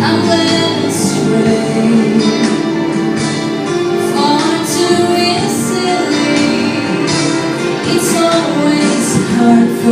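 A woman singing a slow song with instrumental accompaniment.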